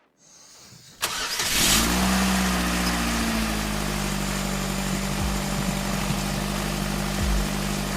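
A vehicle engine starting about a second in, then idling steadily.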